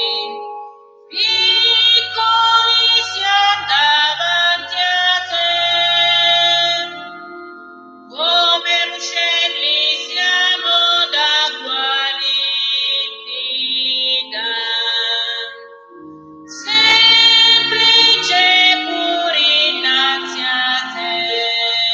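Offertory hymn sung by a woman over held organ-like keyboard notes, in phrases of several seconds with short breaths between them.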